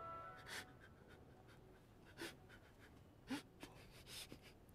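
Near silence, broken by four short, faint breathy sounds, like startled gasps or pants from a man, spread over a few seconds; a held music chord fades out at the start.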